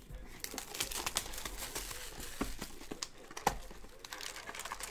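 Plastic shrink-wrap being torn and crinkled off a sealed trading-card box and the box lid pulled open: a dense, uneven run of crackles with one sharper snap about three and a half seconds in.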